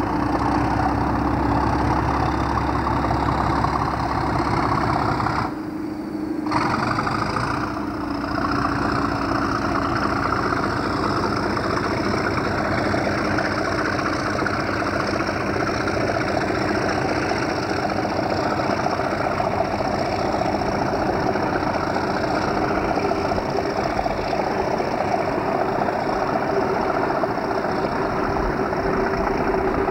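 Class 37 diesel locomotive's English Electric V12 engine running with a steady throb as the locomotive hauls its coaches out of the station. The sound dips briefly about six seconds in.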